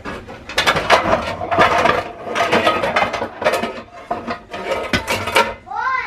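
Kitchen clatter: dishes, pans and utensils knocking and clinking irregularly during cooking, with a brief squeaky up-and-down glide near the end.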